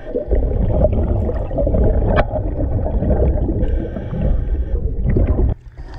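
Muffled underwater rumbling and gurgling picked up by a diver's camera at the river bottom. It cuts off abruptly about five and a half seconds in.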